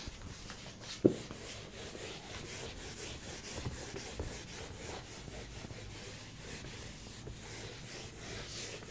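Whiteboard duster wiping marker off a whiteboard in repeated rubbing strokes, with a single sharp knock about a second in.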